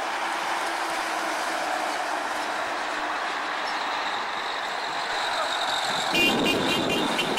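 Road traffic driving past on a concrete road: steady tyre and engine noise, louder about six seconds in as a minivan passes close.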